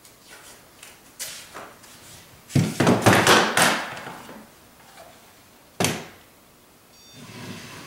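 Handling noises while marking wall studs: a loud cluster of rustling, scraping sounds about two and a half to four seconds in and a single sharp knock near six seconds. Near the end come faint electronic beeps as a stud finder is held against the wall.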